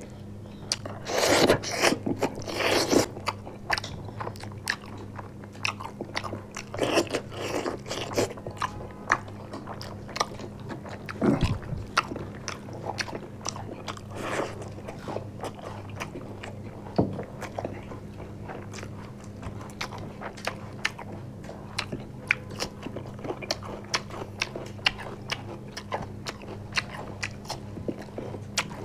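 Several people eating chicken and rice by hand close to the microphone: biting into chicken pieces and chewing. There are frequent small clicks, with louder bites in the first few seconds and again near the middle. A steady low hum runs underneath.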